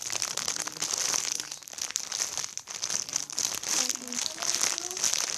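Plastic packaging crinkling continuously as a squishy toy in its bag is handled and turned over, with a dense, irregular crackle.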